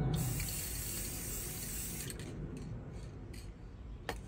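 Aerosol spray can of black paint spraying one burst of about two seconds, then cutting off; a light click near the end.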